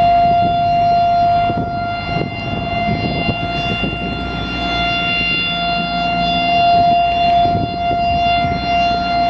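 Federal Signal STH-10 electromechanical outdoor warning siren sounding the steady alert tone, one unbroken pitch that swells and fades in loudness as the siren rotates.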